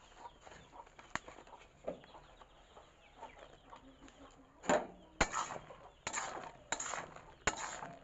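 Hens clucking faintly in the background, then a run of five or six short, loud scrapes and clatters from a cooking pot of jujubes in jaggery syrup, starting about halfway through.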